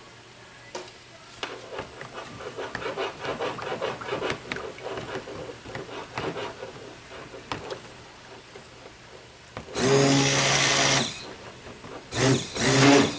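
Stick blender mixing cold process soap batter in a plastic tub. First it is stirred by hand with the motor off, its head clicking and rattling against the tub. Then the motor is pulsed: one burst of about a second and a half, then two quick bursts near the end.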